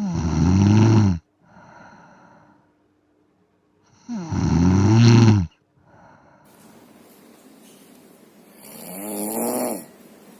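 A sleeping person snoring: three snores about four seconds apart, each lasting about a second to a second and a half, with the pitch sliding within each. A softer breath follows the first, and the third snore is quieter than the first two.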